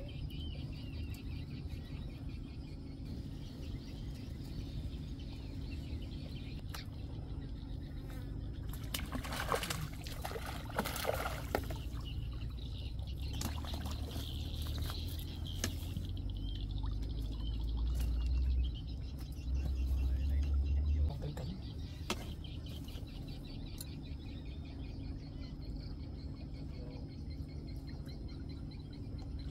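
Wind buffeting the microphone at the pond's edge, strongest in the middle of the stretch, with faint bird chirps. About ten seconds in there is a short burst of splashing and handling noise as groundbait is dropped into the water from a bait cup on a pole.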